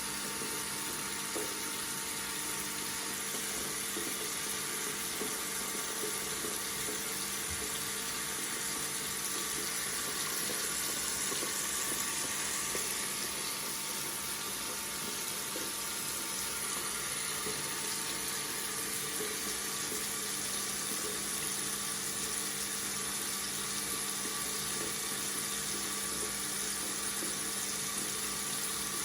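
Water tap running steadily into a sink, a continuous even splashing hiss.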